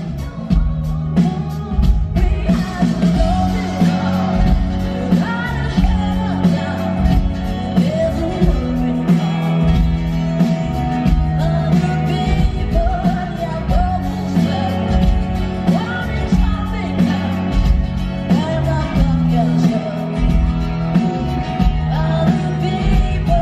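Live pop-rock band performance: a female lead vocalist singing over strummed acoustic guitar and a drum kit keeping a steady beat.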